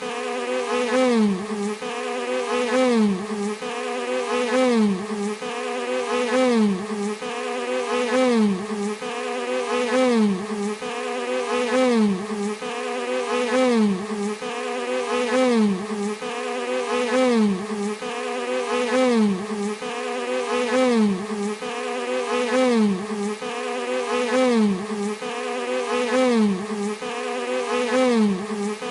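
Bees buzzing steadily, the buzz dipping and swelling in pitch in an evenly repeating pattern about every two seconds.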